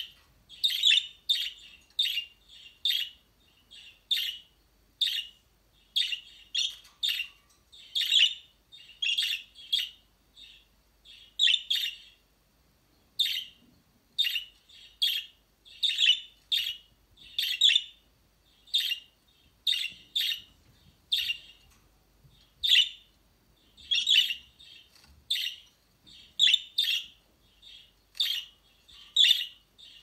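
Budgerigars giving short, sharp chirping calls, about one to two a second with a brief lull partway through. The title presents these as a female budgie's calls.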